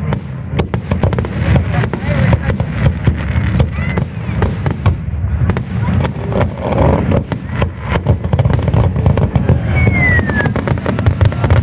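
Aerial fireworks shells bursting in rapid succession: a dense string of bangs and crackles over a continuous low rumble.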